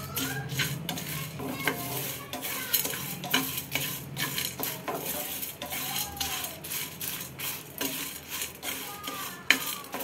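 Wooden spatula stirring and scraping in a non-stick frying pan, with irregular scrapes and taps as the dry-roasting whole spices, dal and red chillies are pushed around and rattle against the pan.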